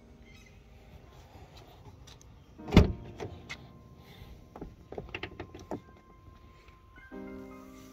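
Front door of a Renault Clio 4 being opened by hand: a single loud knock about three seconds in, then a run of sharp clicks from the handle and latch. Background music comes back in near the end.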